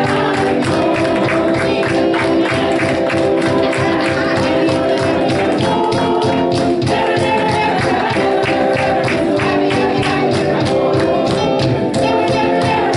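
Gospel worship music with singing over a steady beat.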